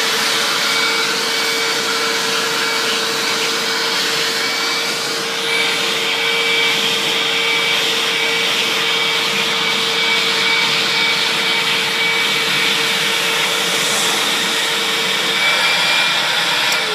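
Purple Hoover U6439-900 upright vacuum cleaner running steadily at full speed, a constant motor hum with a high whine, then switched off at the very end and starting to wind down.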